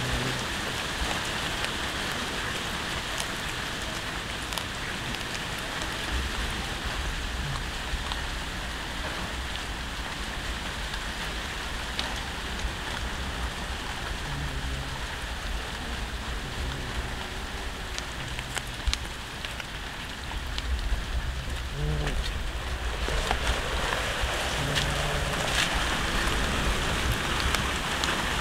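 Cats chewing raw fish at close range: wet crunching with scattered small clicks over a steady hiss. A low rumble comes in about six seconds in and grows louder past twenty seconds.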